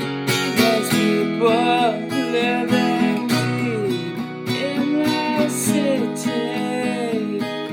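Music: acoustic guitar strumming a steady rhythm, with a melody line that slides and bends in pitch over it for most of the passage.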